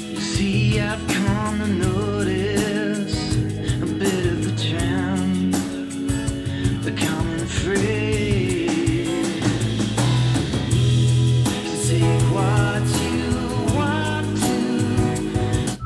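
Guitar-led rock music with drums, played back through JBL LSR305 studio monitor speakers and picked up by a handheld recorder in the room.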